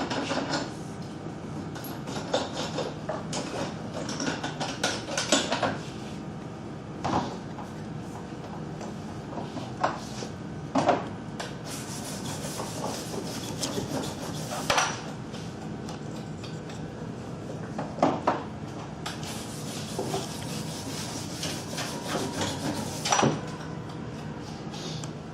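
Sharpening stone rubbed back and forth along a speed skate blade held in a clamped jig, a steady scraping broken by about ten short sharp knocks.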